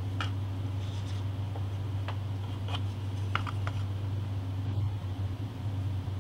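Steady low hum of a small room, with a few faint light clicks and taps from small tools and materials being handled on a workbench.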